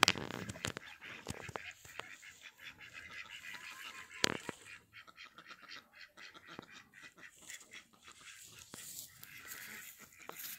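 Domestic ducks quacking, with two sharp knocks, one at the start and one about four seconds in.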